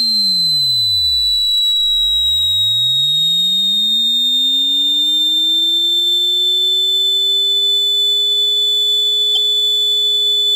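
Synthesized sine-tone sound effect: a loud, steady high-pitched whine that sags slightly in pitch, under a low tone that sweeps down to a deep rumble, then rises again about two seconds in and levels off. It cuts off suddenly at the end.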